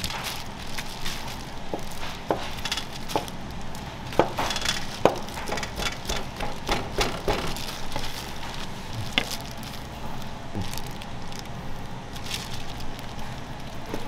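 Kitchen clatter: irregular sharp knocks and clicks over a steady background hum, the loudest knocks about four and five seconds in.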